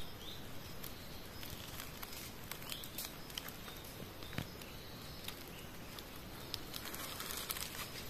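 Faint forest ambience with scattered small clicks and ticks, and a brief rustle near the end.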